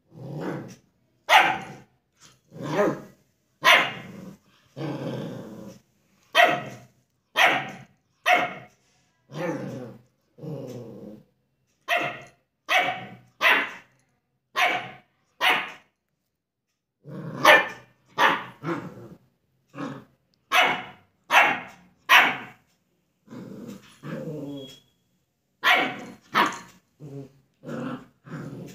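Puppy barking over and over at its own reflection in a mirror, about one bark a second with a short pause around halfway through. A few of the barks are longer and drawn out.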